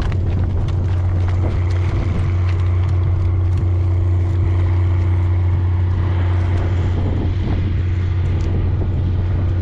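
Steady, loud motor rumble with a constant low hum and an even, unchanging level.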